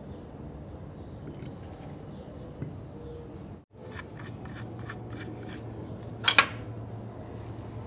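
Small metal clicks and clinks as the parts of a diesel vacuum pump and power steering pump assembly are handled and fitted together by hand, with one sharper, louder metallic clink about six seconds in.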